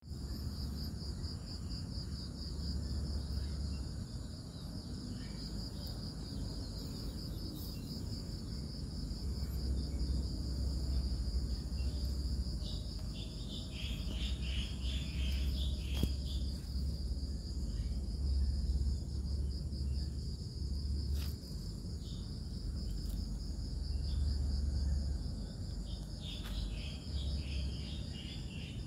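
Insects chirping in a steady, high, finely pulsing trill, with a low rumble on the microphone coming and going and a few brief higher chirps around the middle and near the end.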